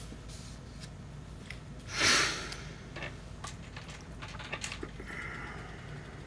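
One short, sharp breath through the nose about two seconds in, the loudest sound here. Light clicks and taps of plastic LEGO pieces being picked up and handled follow.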